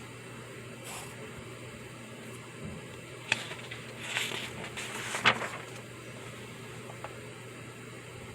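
Small desk-work sounds over a steady room hum: a sharp tap about three seconds in, a brief scratchy rustle, then a louder tap, with a faint tick near the end, like a pencil and paper being handled.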